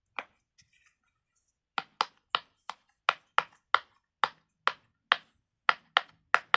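Silicone pop-it fidget toy being popped bubble by bubble: a run of about fourteen sharp pops, one near the start and then a steady two to three a second from about two seconds in.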